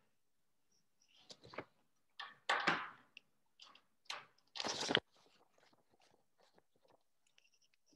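Irregular rustling and bumping noises, with louder scrapes about two and a half and four and a half seconds in and small clicks between.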